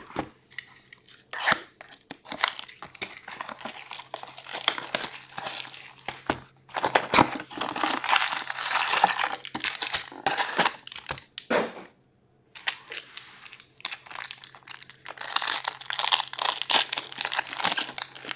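Cardboard box of O-Pee-Chee Platinum hockey cards being opened and its foil packs torn open: crinkling and tearing in three long bursts with short pauses between them.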